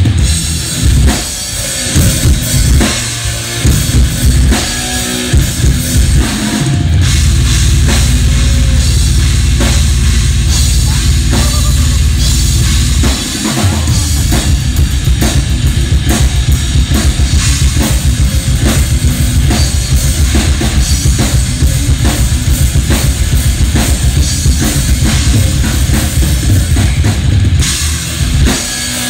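Yamaha acoustic drum kit played live in a solo. It opens with separate hits around the kit, then about six seconds in settles into a long run of very fast, unbroken bass drum strokes under cymbals, with a brief break about halfway.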